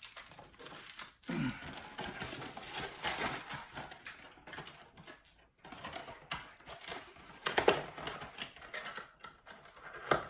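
Trading card boxes and packs being handled: irregular cardboard and plastic rustling, tapping and clicking, with a sharper click about three quarters of the way through and another near the end.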